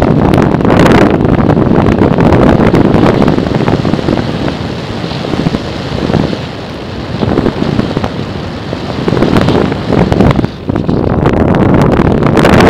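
Wind rushing over the microphone of a camera riding on a flying radio-controlled foam airplane: a loud, gusty rush that eases a little midway and surges back near the end.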